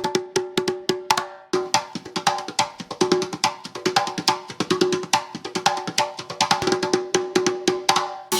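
Background music: a fast run of short, pitched percussive hits with a wood-block or mallet-like sound, over a repeating low note, with a brief break about one and a half seconds in.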